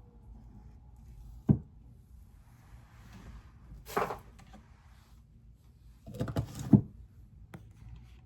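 A few knocks and clatters of small objects handled and set down on a work table: a sharp knock about a second and a half in, a brief scraping rattle near the middle, and a quick cluster of knocks near the end.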